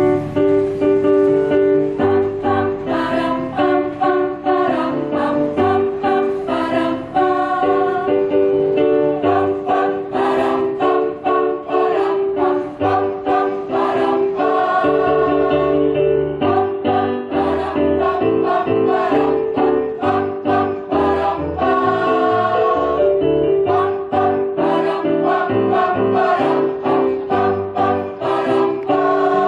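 Mixed choir of men and women singing a song together with instrumental accompaniment.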